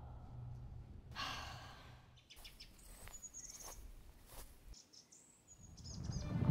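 Faint outdoor quiet with a few short, high bird chirps, after a soft breathy rush of sound about a second in. A low rumble swells up near the end.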